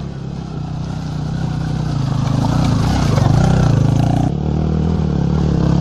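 Motorcycles riding past one after another on a dirt trail, their engine note growing louder as they come close, with an abrupt change about four seconds in.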